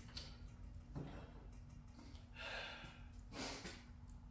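Faint breathing, two soft exhales in the second half, over a steady low hum, with a soft click about a second in.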